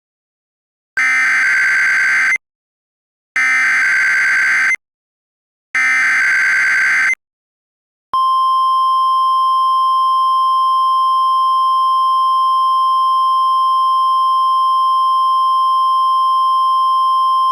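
Emergency Alert System header: three identical screeching digital data bursts, each about a second and a half long with short gaps between. About eight seconds in, a single steady, unbroken attention tone of one pitch begins, the Weather Service 1050 Hz alert tone.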